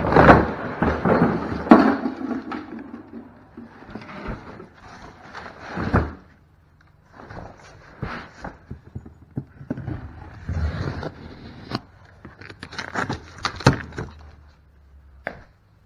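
Cardboard boxes being handled and shifted: irregular scraping and rustling of cardboard with scattered thunks, busiest in the first couple of seconds, with a sharp knock about six seconds in.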